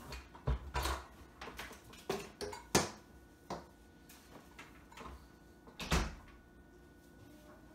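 Knocks and clunks of kitchen items being handled on a counter, including a stand mixer's stainless steel bowl being set in place. There are about half a dozen separate knocks spread over several seconds, the loudest about three seconds in and again about six seconds in.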